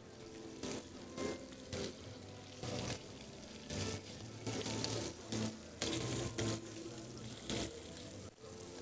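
Fish skewers frying in oil in a pan: a steady low sizzle with short spurts of crackling about once a second as the pieces are turned to brown.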